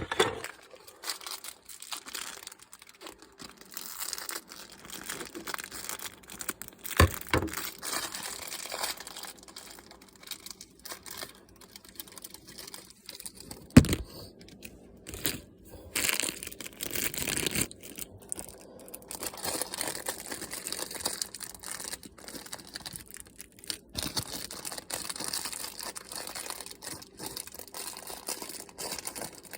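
Thin plastic packaging bag crinkling and tearing as it is opened, with irregular rustling and a few sharp knocks, the loudest about fourteen seconds in.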